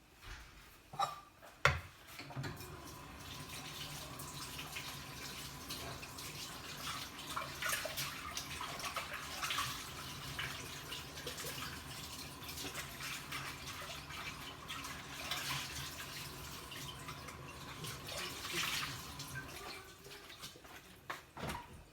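Water from a tap running steadily into a sink, with irregular splashing. It begins just after a sharp knock and stops shortly before the end.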